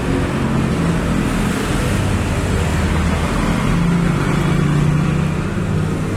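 Car engine running steadily, its pitch rising a little about four seconds in.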